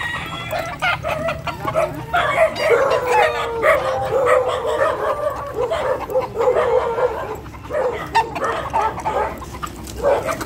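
Roosters crowing and hens clucking, mixed with a dog barking, most busily through the middle of the stretch.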